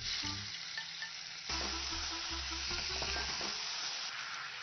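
Pieces of marinated snakehead fish sizzling as they fry in hot oil in a nonstick pan. The sizzle grows stronger about a second and a half in.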